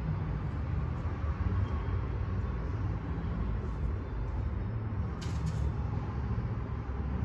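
Steady low rumble of workshop background noise, with a brief higher-pitched rattle about five seconds in.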